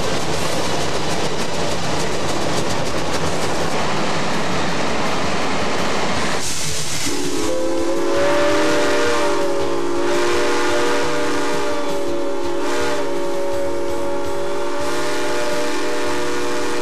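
Steam locomotive: a steady rushing hiss of steam, then about seven seconds in a chime steam whistle sounds one long blast of several notes at once, wavering slightly, for about ten seconds before cutting off.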